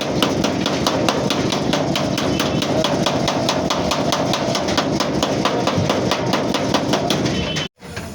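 Rapid, even hammering on sheet metal, about five blows a second, as in panel beating on a van's bodywork; it cuts off suddenly near the end.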